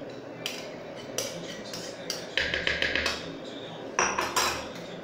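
Glassware clinking and knocking on a kitchen counter: a glass tapping the blender jug as it is poured, then a quick run of clicks and, about four seconds in, the loudest clinks, as of ice cubes going into a glass.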